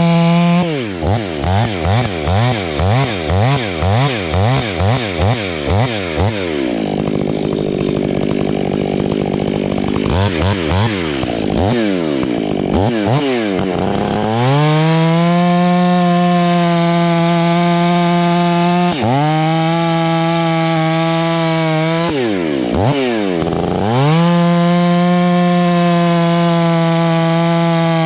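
Stihl 500i chainsaw, a fuel-injected two-stroke fitted with an 8-pin rim sprocket, running loud at high revs. For the first six seconds the engine pitch swings up and down about twice a second. After that it holds a steady high pitch, dropping briefly a few times.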